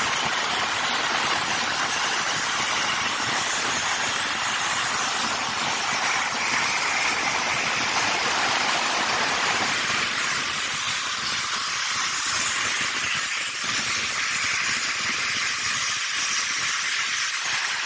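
Plasma torch of an Everlast Power Plasma 82i running flat out at 80 amps, cutting half-inch steel plate: a loud, steady hiss of the arc and its compressed-air jet.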